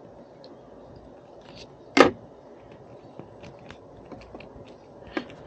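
One sharp loud snap about two seconds in, typical of a hand crimper closing on an RJ45 network cable connector, with light ticks of handling the cable and tool around it and a smaller click near the end.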